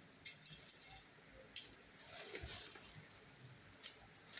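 Light clicks and clinks of small hard objects being handled: a quick run of them in the first second, then single clicks with a soft rustle between.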